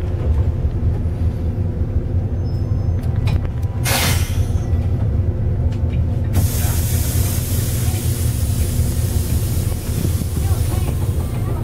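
Bus engine running steadily, heard from inside the passenger cabin. About four seconds in comes a short burst of air-brake hiss, and from about six seconds on a steady high hiss joins the engine.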